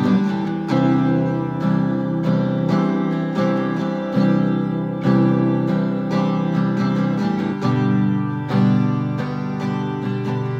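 Acoustic guitar strummed in a steady rhythm, playing the instrumental introduction to a song.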